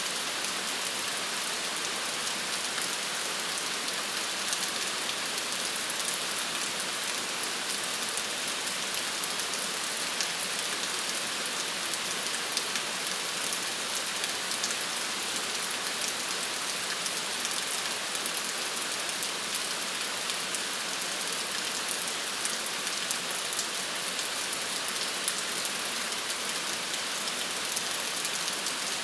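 Steady rain falling on hard surfaces: an even hiss with many fine drop ticks throughout.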